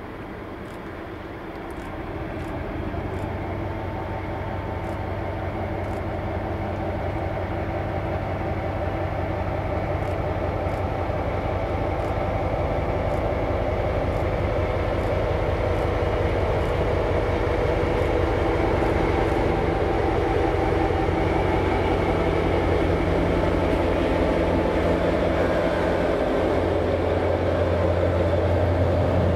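NOHAB MY-class diesel-electric locomotive with its EMD two-stroke engine running steadily as it approaches at the head of a freight train, growing steadily louder. The empty car-carrier wagons roll past near the end.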